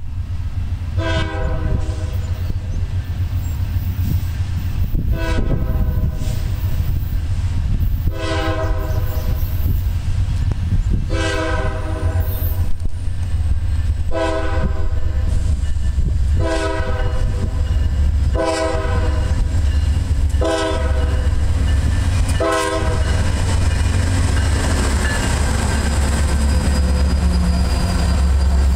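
Air horn of a Norfolk Southern GE Dash 9-40CW freight locomotive sounding a long string of blasts, about nine in all, each around a second long with the last one short. Under the horn are the heavy, steady rumble of the approaching diesel locomotives. Near the end, after the horn stops, the locomotives draw level and their engine and rail noise grows louder.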